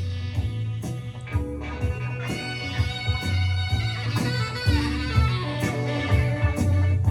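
Music with guitar, bass and a steady drum beat, played back through Focal Sopra N1 bookshelf monitor speakers during a listening test.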